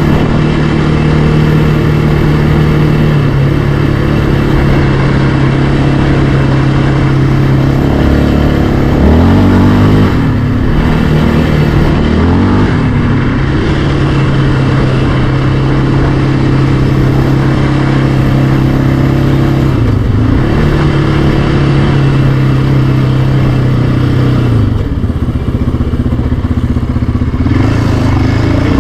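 Yamaha Raptor 700R ATV's single-cylinder four-stroke engine running at a steady cruise under way on a trail, its pitch dipping and climbing back several times as the throttle is eased off and reopened.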